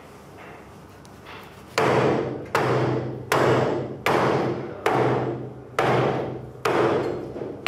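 Heavy cleaver chopping through a slab of raw meat into a wooden butcher's block: after a quiet start, about eight loud chops come at an even pace, a little under a second apart, each with a short ringing thud.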